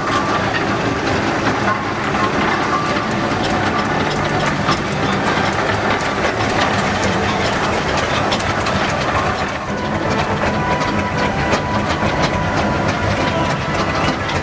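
Steam traction engines driving past in convoy: a steady, loud mechanical rumble with many sharp clanks and knocks running through it.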